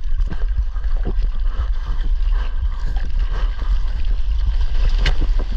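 Water sloshing and splashing against a surfboard as it is hand-paddled through choppy sea, with wind rumbling on the board-mounted camera's microphone. A sharper splash comes about five seconds in.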